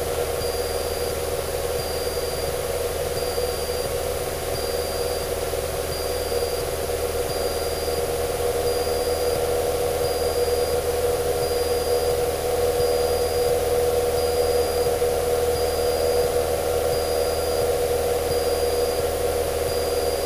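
A Cessna 152's four-cylinder Lycoming O-235 engine and propeller droning steadily, heard from inside the cabin in flight, getting slightly louder partway through.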